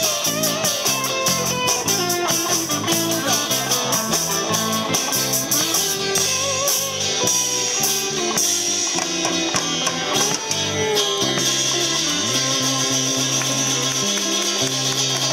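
Live rock band of electric guitars, electric bass and drum kit playing, with long held notes in the last few seconds.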